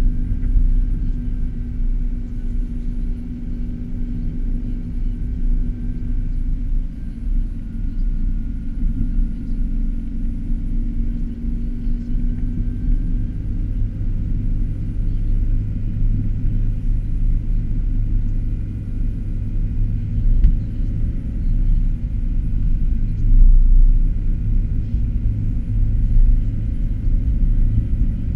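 Steady low rumble inside a car's cabin as it drives over a snow-covered road, from the engine and tyres. A steady hum over the rumble fades out about halfway through, and the rumble swells briefly a few seconds before the end.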